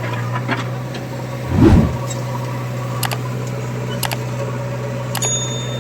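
Diesel engine of heavy farm or construction machinery running steadily, with a louder low surge about one and a half seconds in and a few light clicks.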